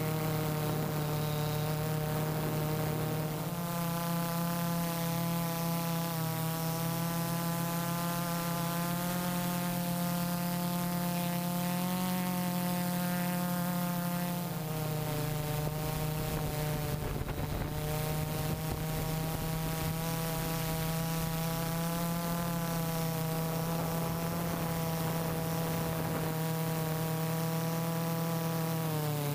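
Electric motors and propellers of a Y6 multirotor drone, whining and humming steadily as heard from its onboard camera, the pitch shifting slightly a few times as the throttle changes.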